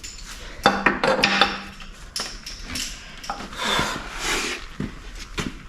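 Hand work on a motorcycle's rear wheel assembly: a quick cluster of sharp metal clanks and knocks about a second in, then rubbing and scraping of parts being shifted, with a few single knocks near the end.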